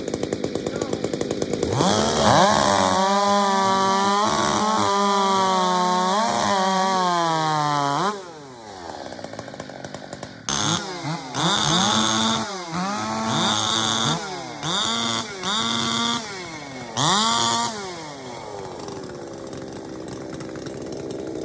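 Two-stroke racing chainsaw idling, then held at full throttle for about six seconds, its pitch sagging slowly before it drops back to idle. It is then revved in about six short bursts and settles back to idle near the end.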